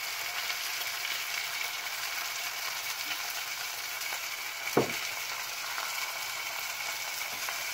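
Chicken pieces and sliced garlic sizzling in hot oil in a stainless steel saucepan while being stirred, a steady hiss. One short knock about five seconds in.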